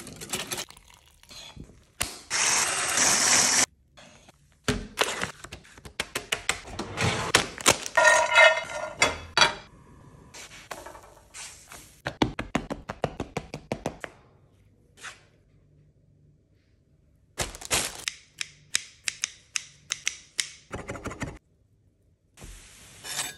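A quick run of close-miked pancake-making sounds: a wire whisk clinking against a glass bowl of batter, knocks and taps of utensils, and a couple of seconds of steady hiss near the start.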